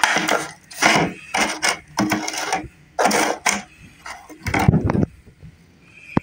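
Clear plastic containers being handled: the thin plastic lids crinkle and clatter in a quick run of short noisy bursts, then a heavier thump about four and a half seconds in.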